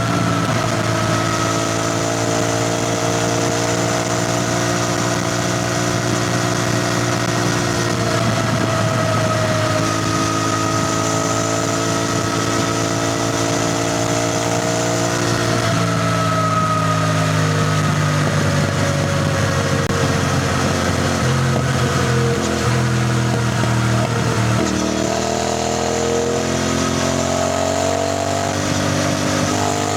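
CFMoto 450NK motorcycle's parallel-twin engine running under way, its note dipping and rising several times with the throttle.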